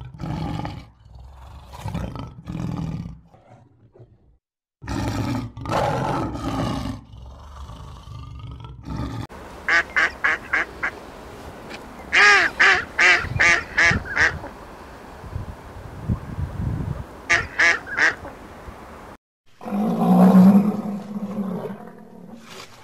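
Animal calls from several short clips cut together, with abrupt gaps between them. In the middle comes a run of short, quick pitched calls in groups of five or six, then three more near the end.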